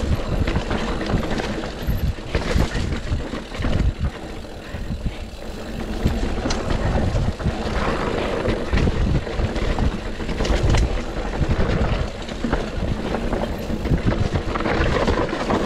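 GT Sanction enduro mountain bike riding fast down a rough, rocky trail. Wind buffets the chest-mounted microphone, and tyres, chain and suspension rattle and clatter over the ground.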